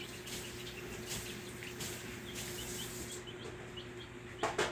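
Young chickens giving short, soft chirps on and off, over a steady low hum. A couple of sharp clicks sound near the end.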